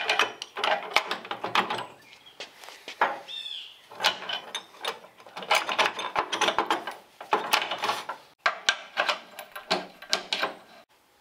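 Ratchet wrench clicking in several quick runs while bolts on a manual tubing bender are worked, with metal clatter from the bender.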